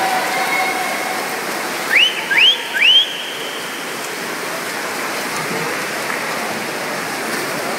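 Backstroke swimmers splashing down the pool, a steady wash of water noise, with three short rising whistles about two seconds in.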